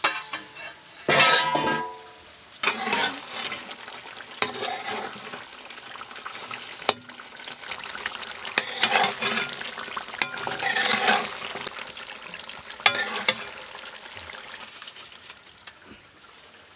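Mutton ribs frying and sizzling in a thick masala gravy in a kadai while a spatula stirs and scrapes them, with sharp clinks of the spatula against the pan now and then. A louder clatter comes about a second in, as the lid comes off.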